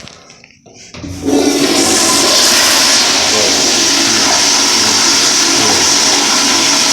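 Toilet flushing: the loud rush of water starts suddenly about a second in and keeps going steadily, an unusually long flush.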